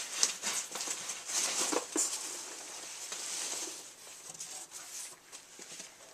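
Cardboard and plastic toy packaging being handled and opened: a run of quick rustles, scrapes and small taps, busiest in the first three seconds and fainter after.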